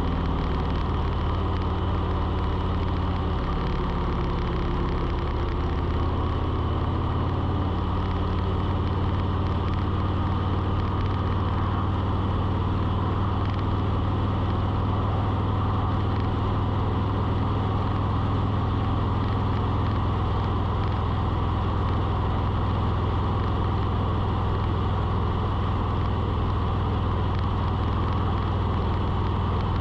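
Steady motor hum with a strong low drone; its low tones shift in pitch a few times during the first several seconds, then hold steady.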